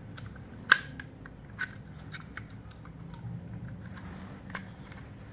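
Handling of the plastic PoE adapter, its mounting bracket and cables as a connector is fitted, a few sharp small clicks and knocks, the loudest about three-quarters of a second in, with soft handling noise between.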